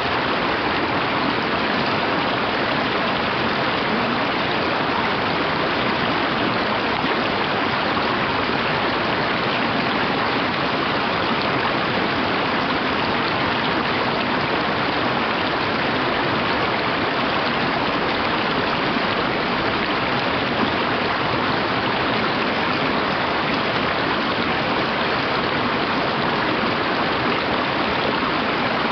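Mountain stream running over rocks in shallow riffles and small cascades: a steady, unbroken rush of water.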